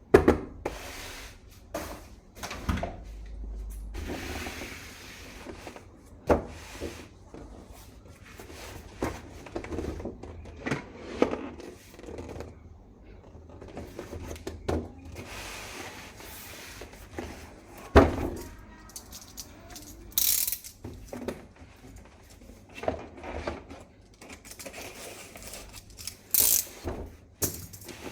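Toy HK417 rifle being unboxed and handled: scattered clicks, knocks and ratcheting of plastic parts, with a few short rustles, the loudest knock about eighteen seconds in.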